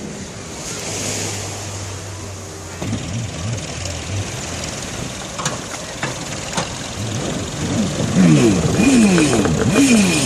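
Speedboat engine running, then revved up and down repeatedly near the end as the boat is driven up out of the water. A couple of sharp knocks come in the middle.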